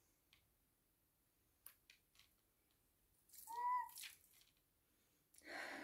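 A person sniffing a paper perfume test strip: a short nasal sniff with a brief whistle-like tone about three and a half seconds in, and a soft breathy inhale near the end. Otherwise near silence, with a couple of faint paper ticks.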